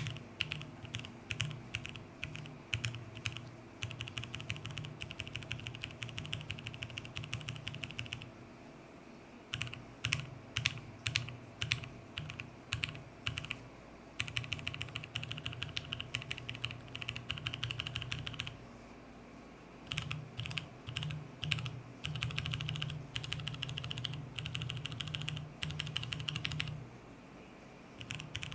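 Mechanical keyboard with linear switches on a polycarbonate plate being typed on. It alternates between separate, spaced keystrokes and runs of fast typing, with brief pauses between them.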